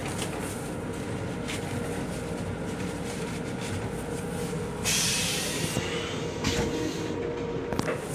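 Metro-North M7 electric railcar running, its steady rumble heard inside the car's small restroom. A short hissing rasp comes about five seconds in, with a couple of light knocks near the end.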